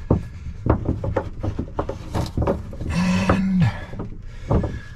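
Hands tying a bundle of electrical wires together: irregular rubbing, rustling and light knocks.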